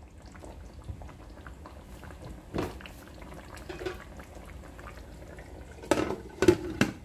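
Goat meat curry bubbling in a pot in its own juices: a faint steady crackle with several louder bubble pops, bunched near the end.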